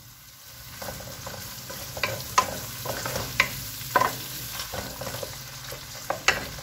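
Ground beef, onion and green bell pepper sizzling in oil in a non-stick pan while a wooden spatula stirs and scrapes through them. Several sharp knocks of the spatula against the pan break through the sizzle, one of the loudest near the end.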